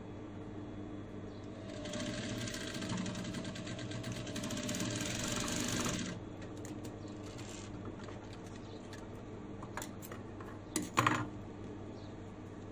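Industrial lockstitch sewing machine stitching a bag's fabric strap in one fast run of a few seconds, starting about two seconds in and stopping about six seconds in. A few sharp clicks follow near the end as the fabric is handled.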